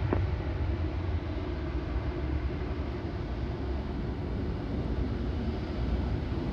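Airbus A340-600's four Rolls-Royce Trent 556 jet engines running at low taxi thrust as the airliner rolls onto the runway: a quiet, steady low rumble with a soft hiss above it.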